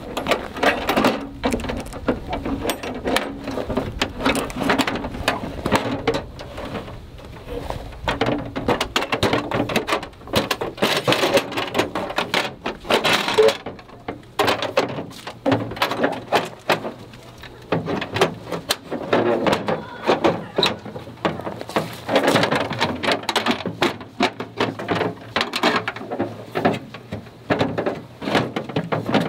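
Irregular rustling, knocking and clattering of gear being handled and moved.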